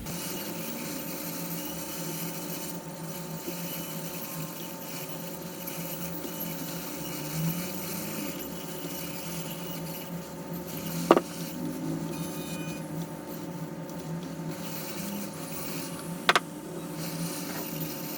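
Soldering iron and tweezers scraping and rubbing on a laptop motherboard while an NEC Tokin chip is desoldered and pried off, over a steady low hum. Two sharp metallic clicks stand out, about eleven seconds in and again about five seconds later.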